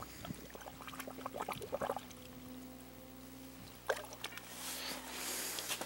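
Water being scooped and poured from a hole in the lake ice to pre-fill a sediment piston corer, with scattered clicks and one sharp knock of handling a little before the middle. A hiss of pouring rises near the end.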